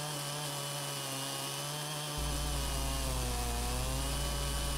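Stihl chainsaw in a chainsaw mill running at full throttle under load, ripping lengthwise through a white oak log. The engine note holds steady, sagging slightly in pitch about three and a half seconds in.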